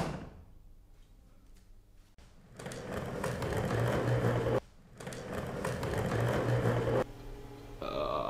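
Office chair's casters rolling fast across a tiled floor with a rumble, in two runs of about two seconds each with a short break between. There is a sharp click right at the start.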